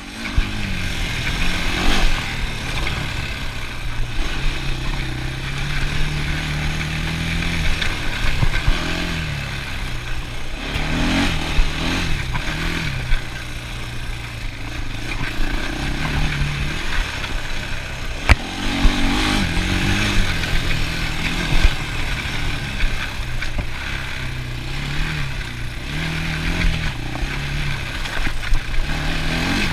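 ATV engine running under way, its pitch rising and falling again and again as the throttle opens and closes, with a few sharp knocks along the way.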